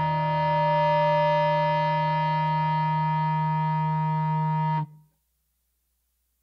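Closing chord of a stoner-rock track: distorted electric guitar and bass holding one sustained chord, which cuts off suddenly about five seconds in.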